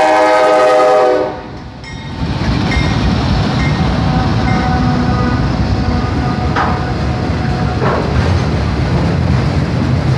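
A Norfolk Southern locomotive horn sounding a loud chord that cuts off about a second in. After a short lull, a passing train's wheels rumble steadily on the rails, with a couple of brief clanks partway through.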